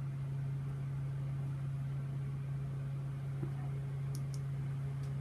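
A steady low machine hum, with two faint short clicks about four seconds in.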